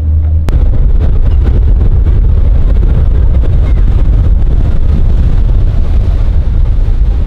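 Motorboat under way: heavy wind buffeting on the microphone over the boat's running noise, starting abruptly about half a second in.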